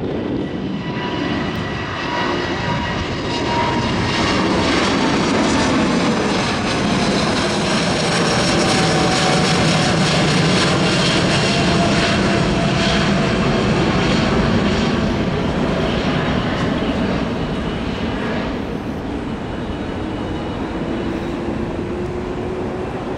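Boeing 787-8 airliner with Rolls-Royce Trent 1000 turbofans at take-off thrust, climbing out low overhead: a steady jet roar that builds to its loudest in the middle. Engine tones glide down in pitch as it passes, and the roar eases as it climbs away.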